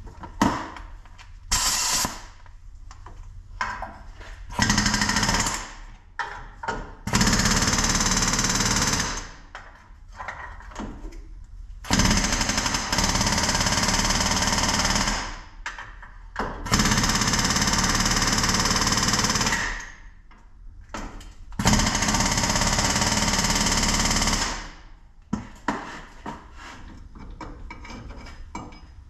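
Pneumatic air hammer rattling against a truck's front hub bearing assembly in about six bursts of one to three seconds, with short pauses between. It is driving the corrosion-seized hub loose from the steering knuckle.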